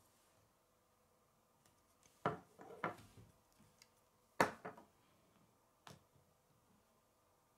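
Plastic K'nex pieces clicking and knocking against a wooden tabletop: a few separate clacks, the loudest a little past halfway as a built section is set down.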